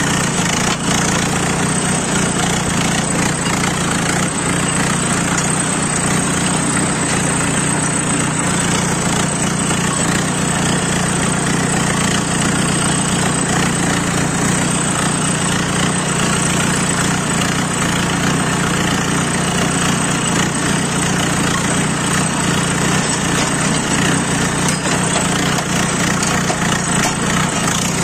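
Tractor diesel engine running steadily under load as it pulls a tine cultivator through dry, hard field soil, heard close up from the driver's seat.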